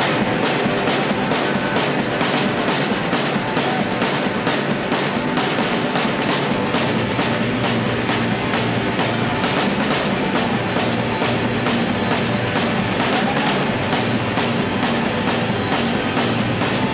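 Live band playing loudly, with the drum kit close to the microphone over electric guitar and bass, and a steady, evenly spaced drumbeat.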